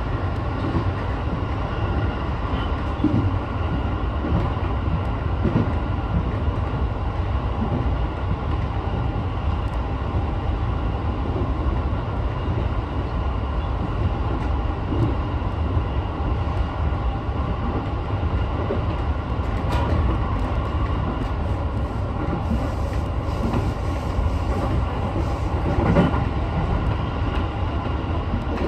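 Sotetsu 12000 series electric train running at speed, heard from inside behind the driver's cab: a steady rumble of wheels on rail under a few faint steady tones, with a sharp knock near the end.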